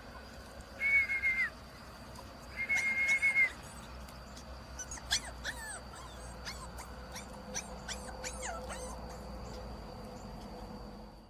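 Puppy whining: two long, high, level cries about a second and three seconds in, then a run of short, high, falling yelps.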